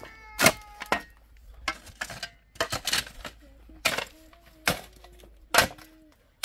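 A shovel and a pick digging into stony, rocky soil: a sharp strike of metal into dirt and stone about once a second, with scraping between.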